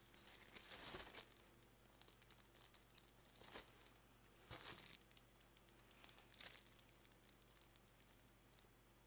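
Faint crinkling of plastic packaging being handled. It comes in a few short bursts: a longer one about a second in, then brief ones at about three and a half, five and six and a half seconds.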